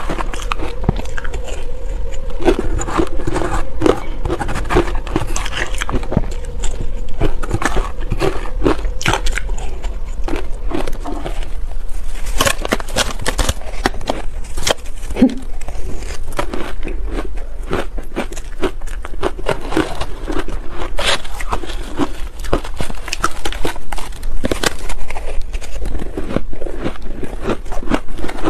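Shaved and soft ice coated in matcha powder being bitten and chewed close to clip-on microphones: a dense, loud run of crunching and crackling bites with no let-up.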